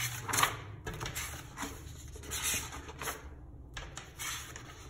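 Pages of a spiral-bound printed study booklet being turned one after another: paper rustling and swishing, several quick turns in a row.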